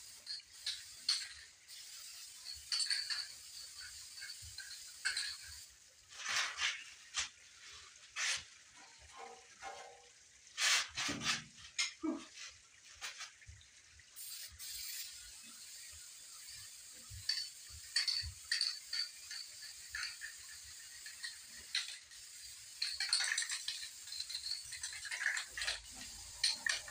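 Intermittent clinks, knocks and rattles of metal parts being handled inside a metal box, with the busiest stretches in the middle and near the end.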